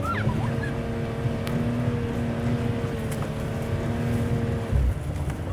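Truck engine held at steady high revs, stopping about three quarters of the way through with a low thump. A goose honks briefly at the very start.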